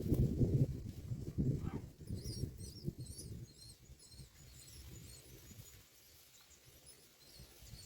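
Low rustling knocks for the first couple of seconds, then faint, quick high-pitched bird chirps for a couple of seconds before it quietens.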